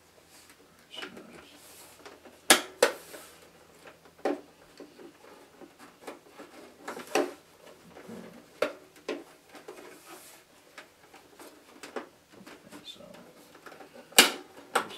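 Hard plastic clicks and knocks as the back and battery compartment of a large boombox are handled: a scattering of sharp taps, the loudest about two and a half seconds in and again just before the end.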